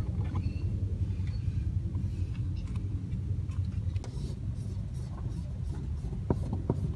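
Steady low rumble of an idling car heard from inside the cabin, with a few faint clicks near the end.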